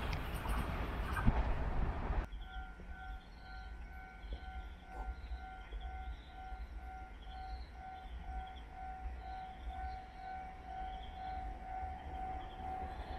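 Rumble of a Taiwan Railways EMU900 commuter train running through at speed and receding, cut off sharply about two seconds in. Then a quiet stretch holds an evenly pulsing electronic warning tone and faint high chirps while a Puyuma express approaches in the distance.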